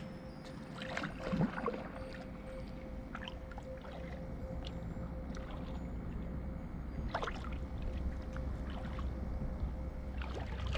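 Kayak paddle blades dipping and pulling through calm lake water, with a few irregular splashes and drips.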